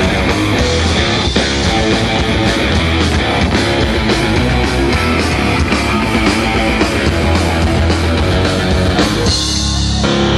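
Live rock band playing an instrumental passage: electric guitars and drums, loud and steady.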